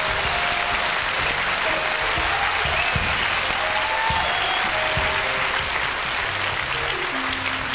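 Studio audience applauding steadily, with music notes playing over the clapping.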